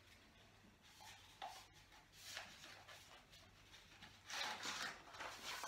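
Faint rubbing and tapping as a paper tube is handled over the neck of a Coca-Cola bottle. About four seconds in, a short fizzing rush as the cola foams up and erupts from the bottle.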